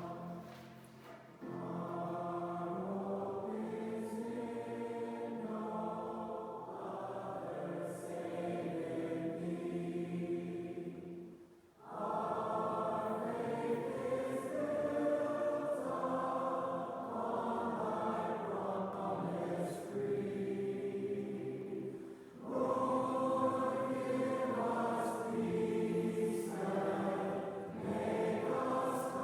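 Choir singing a hymn in several parts, with long held notes and short breaths between phrases about every ten seconds.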